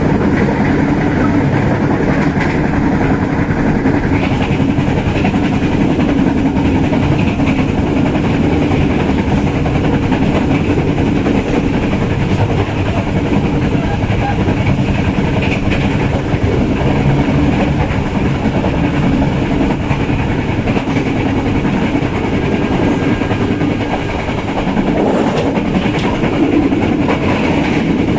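Bengawan passenger train running along the track, heard from inside the carriage: a steady, loud rumble of wheels on rails with faint clickety-clack.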